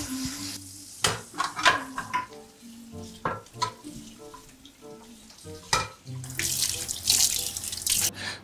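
Kitchen tap running hard into a stainless steel sink as dishes are rinsed under it, with water splashing and several sharp knocks of steel dishes and utensils against each other and the sink.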